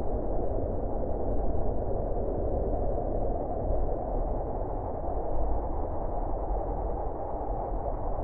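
Wind howling: a steady rushing with a deep low rumble underneath, swelling and easing slightly.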